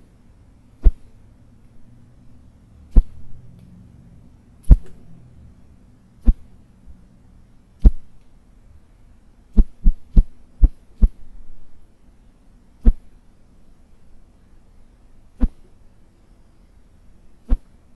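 Short, sharp whooshes of something whipped fast through the air, thirteen swishes at uneven intervals with a quick run of five about ten seconds in.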